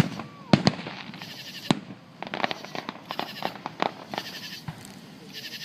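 Fireworks going off: a string of sharp bangs and crackles, the loudest near the start and about a second and a half in.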